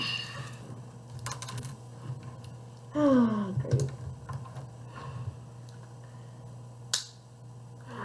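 Plastic clicks and taps of Rubik's Cube pieces being pressed and worked into place, with a sharp click about seven seconds in. About three seconds in there is a short voice sound falling in pitch.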